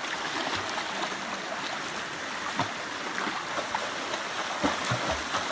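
Steady rush of river water from a waterfall and stream, with splashing from a person swimming through the pool and a few sharper splashes in the second half.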